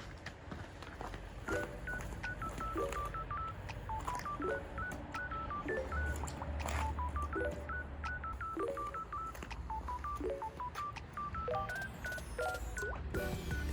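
Background music: a light electronic tune of short, beeping melody notes with brief chord stabs, and a bass line that comes in about six seconds in.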